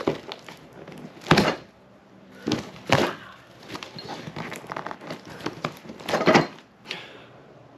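Cardboard box being opened and its contents handled: several sharp thunks, with softer scraping and crinkling of cardboard and packing in between.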